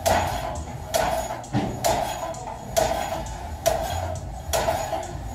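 Smith machine barbell clanking against its safety stoppers about once a second as the lifter bounces heavy partial shoulder-press reps off them, each hit ringing briefly.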